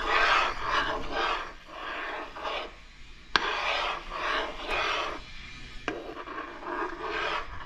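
Metal spoon scraping round the bottom of a pan of thick maja blanca (corn and coconut milk pudding) being stirred until it thickens: rhythmic scraping strokes, about two to three a second, with two sharp clinks of the spoon against the pan, the first just past three seconds in and the second near six seconds.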